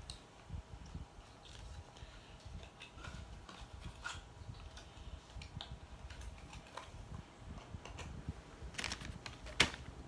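Faint handling noise: scattered small clicks and short rustles over a low background rumble, with one sharp click near the end.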